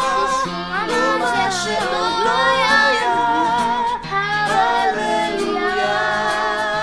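A song playing: a singing voice with instrumental backing.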